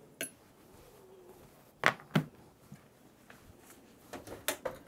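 A few sharp knocks and clatters as a hot metal muffin pan is fetched from the oven and handled in the kitchen: two loud knocks about two seconds in and a quick cluster of smaller clatters near the end.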